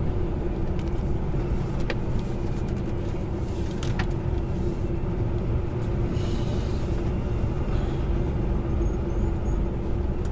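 Truck engine running steadily as heard inside the cab while driving, with a constant low drone and road rumble. A few sharp clicks come about two and four seconds in, and a brief hiss comes just past the middle.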